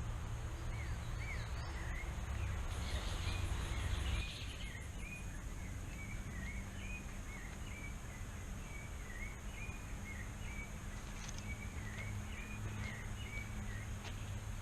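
Rainforest ambience: a bird calling over and over in quick short chirps, against a steady high insect drone.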